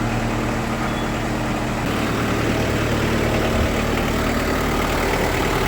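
Kubota M59 backhoe's diesel engine running steadily as the machine moves, growing a little louder about two seconds in.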